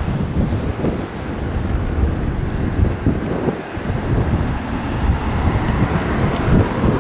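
Cars driving slowly past at close range, their engines and tyres under a gusty rumble of wind on the microphone.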